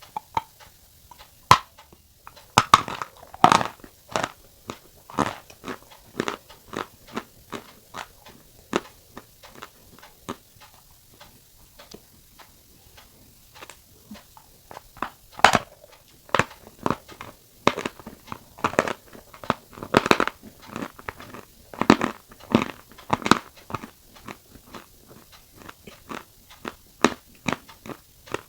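Someone biting and chewing dry white clay, crisp crunches in irregular bursts, with a quieter stretch about halfway through.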